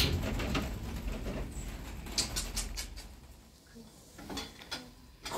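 A quick run of about five sharp clicks about two seconds in, followed by a couple of faint knocks.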